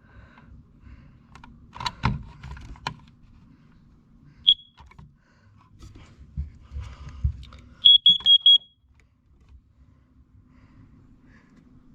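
Carbon monoxide alarm being tested: one short high beep about four and a half seconds in, then a group of four quick high beeps near eight seconds, the four-beep pattern a CO alarm sounds. A few clicks and knocks about two seconds in.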